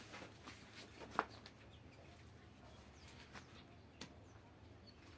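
Faint clicks and rustles of a worn cloth strap with metal hooks being handled and tied to a peg. A few short, sharp ticks stand out, the loudest about a second in.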